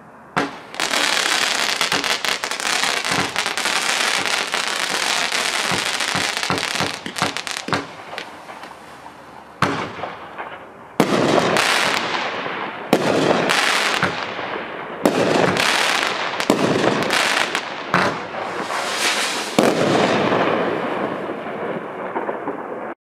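Hot Fireworks 'Shock' 20-shot consumer cake firing. Its comets crackle densely for the first several seconds, and then separate shots go off a second or two apart, each trailing off in hiss and crackle. The sound cuts off abruptly near the end.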